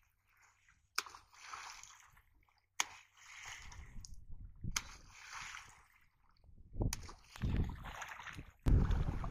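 A long pole slapped down on shallow floodwater three times, about two seconds apart, each sharp smack followed by a short spray of splashing, beating the water to drive fish toward a staked net. Near the end, low rumbling wind buffets the microphone.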